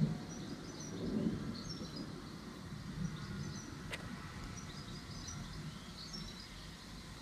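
Gusty wind buffeting the microphone in low rumbling swells that ease off after about 3 seconds, with small birds chirping throughout and one sharp click about 4 seconds in.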